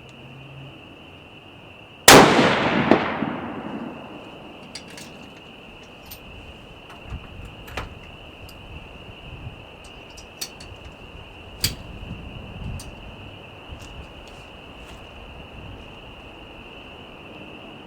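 A single 7mm-08 Encore Pro Hunter pistol shot with a long echoing decay, followed less than a second later by a sharp clang of the bullet striking a steel plate at 200 metres. Several lighter clicks and knocks follow, over a steady high trill of insects.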